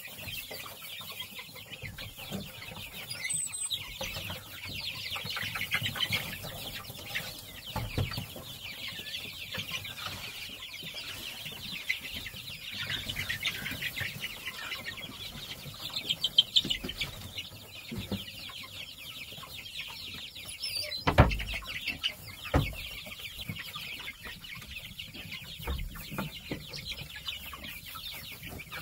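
Chickens calling and clucking in a steady chatter of short high calls, with a few dull knocks, the loudest about two-thirds of the way through.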